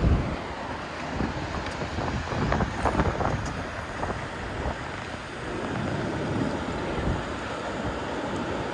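Wind buffeting the microphone over steady rushing water, with a few soft knocks in the first three seconds.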